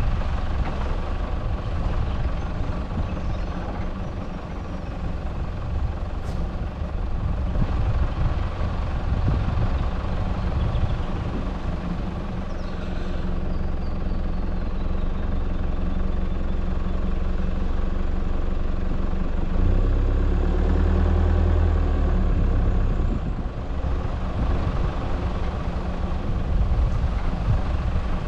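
Four-wheel drive running at low speed along a dirt and gravel track: a steady engine hum with tyre and road noise, swelling to a louder low rumble for a few seconds about twenty seconds in.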